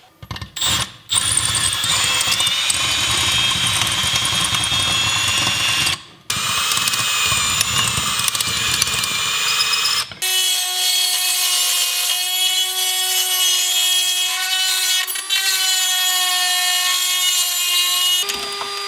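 Cordless drill drilling out rivets in a metal chimney deck fitting, running in long stretches with brief stops about six and ten seconds in; the later stretch has a steady motor whine.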